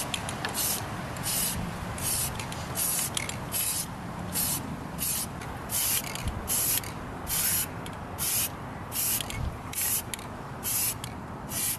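Aerosol spray-paint can hissing in short, rapid bursts, about two a second, as red paint goes onto the toy's pressed-steel body parts.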